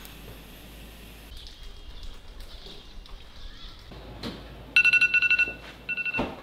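Electronic beeping in two quick runs of rapid pulses, the first loud and lasting under a second, the second shorter, over a low steady hum with a couple of knocks.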